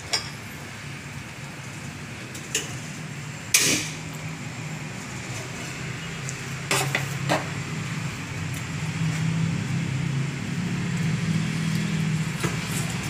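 Scattered knocks and clinks of plates and utensils being handled at a stainless steel kitchen sink, the loudest about three and a half seconds in, over a steady low hum that grows a little louder in the second half.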